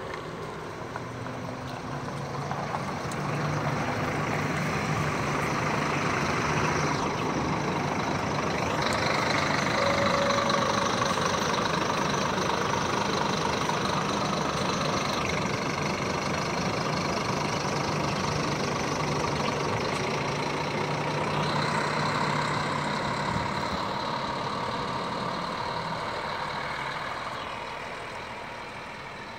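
Diesel engine of a Marcopolo double-decker coach pulling away and driving past, growing louder to a peak about ten seconds in, then fading as it drives off.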